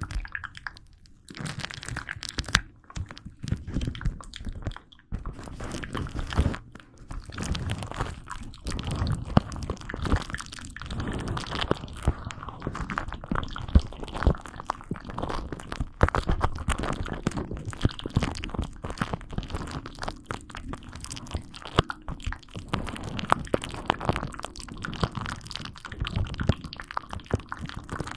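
Close-miked ASMR crunching and crackling: a dense, continuous run of small crisp clicks and crunches.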